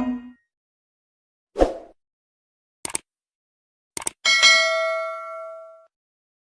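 A short dull knock and a couple of quick clicks, then a bright bell-like ding that rings out and fades over about a second and a half.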